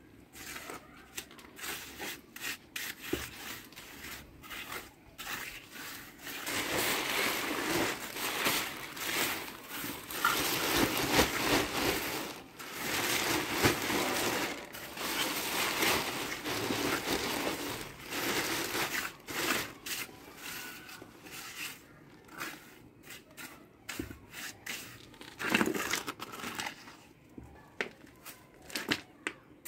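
Plastic sack crinkling and rustling as it is handled, mixed with a trowel scraping and smoothing wet plaster; the rustling is irregular and loudest through the middle of the stretch.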